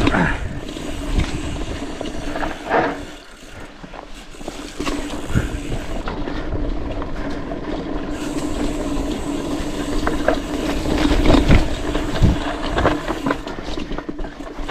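Mountain bike descending a rough dirt trail: tyres rumbling and the bike rattling and knocking over bumps, with a steady buzz from the Speedone Soldier rear hub freewheeling. It goes quieter for a moment a few seconds in.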